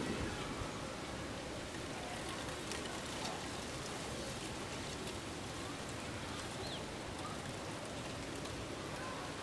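Steady outdoor background hiss with a few faint ticks.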